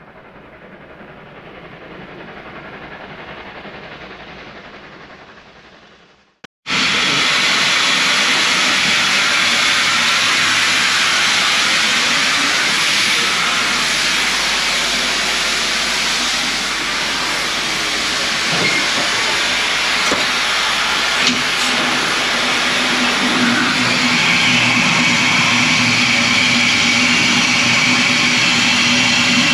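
Steam locomotive letting off steam with a loud, steady hiss that starts abruptly about seven seconds in, after a quieter fading-up stretch. A steady low tone joins the hiss near the end.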